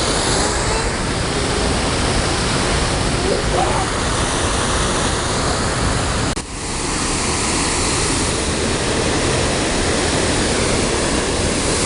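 Waterfall rushing, a loud steady roar of falling water, broken by a brief cut about six and a half seconds in.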